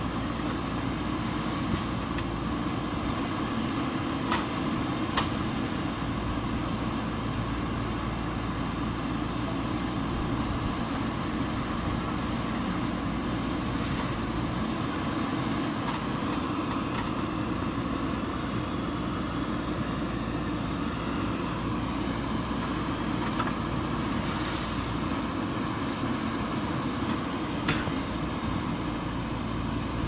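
JCB 3DX backhoe loader's diesel engine running steadily while the backhoe arm digs and moves earth, with a few sharp clanks.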